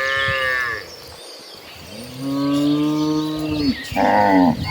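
Cattle mooing: three moos, a short one right at the start, a long low one about two seconds in, and a shorter, higher one near the end.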